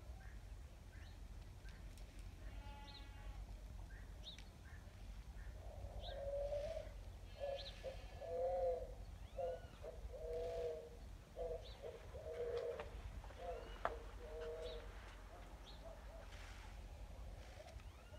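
A dove cooing in a long run of soft, low coos through the middle of the stretch, with small birds chirping now and then.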